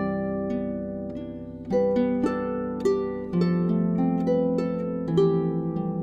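Solo harp music: a Dusty Strings FH36S harp played at a gentle pace, plucked notes and chords ringing on over held bass notes.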